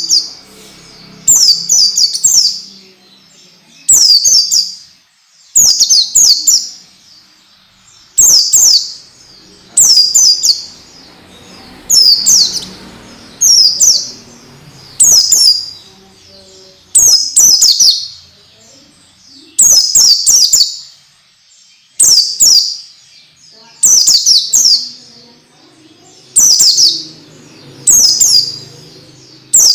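White-eye (pleci) song: short, loud bursts of high, quick downward-sweeping notes, repeated every one to two seconds.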